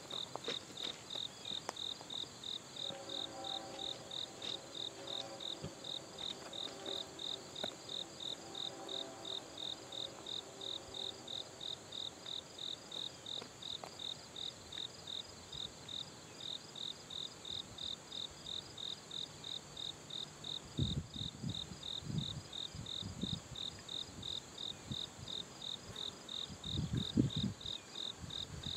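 Insects chirping in a steady, even pulse, about two and a half chirps a second. A faint, distant locomotive horn chord sounds from a few seconds in for about ten seconds, and low rumbling comes in near the end.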